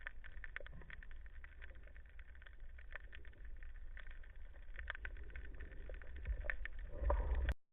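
Underwater ambience heard through a camera housing: a muffled low rumble of water movement with scattered sharp clicks, cutting off suddenly near the end.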